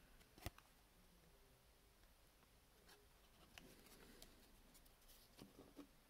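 Near silence: room tone, with a sharp click about half a second in and a few faint soft clicks of trading cards and a plastic card sleeve being handled.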